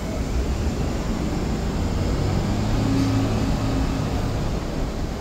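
Steady low hum and rumble of an R188 subway train standing at the platform, its on-board equipment running, with a faint higher tone joining for about a second midway.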